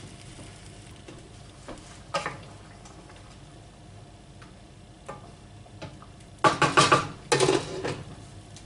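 A spoon clinking and scraping in a pan of chicken gravy while it is stirred, with two louder clattering stretches about six and a half and seven and a half seconds in.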